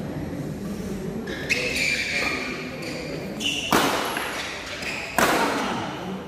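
Badminton rally: three sharp racket strikes on the shuttlecock, roughly one and a half to two seconds apart, each trailing off in the hall's reverberation.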